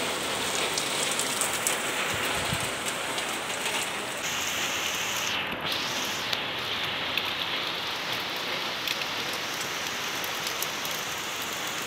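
Heavy rain pouring down: a steady hiss of falling rain with the fine patter of drops striking nearby surfaces.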